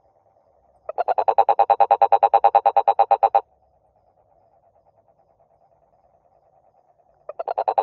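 A frog calling: a fast pulsed croak of about ten pulses a second, lasting about two and a half seconds. A second call starts near the end. Under and between the calls runs a faint steady trilling.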